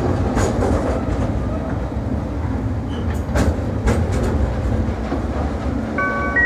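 Freight wagons loaded with logs rolling past, a steady low rumble broken by sharp clicks as the wheels cross rail joints, easing off as the last wagon goes by. Near the end a few steady high tones set in.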